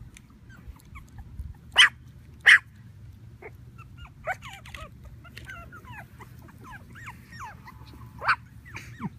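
Havanese puppies yipping and whining while play-fighting. Two sharp yips come about two seconds in, then a run of short sliding whines and squeals, and one more loud yip near the end.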